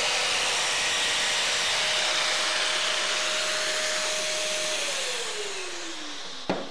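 Shop dust extractor running with a steady rushing hiss and whine, then winding down about five seconds in, its whine falling in pitch as it slows. A single sharp knock near the end.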